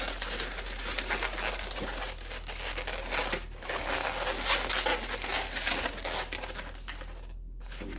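Latex twisting balloons (a black 260) being worked by hand: rubber rubbing against rubber in quick scratchy rubs and squeaks as the balloon is twisted and wrapped into the figure, easing off briefly near the end.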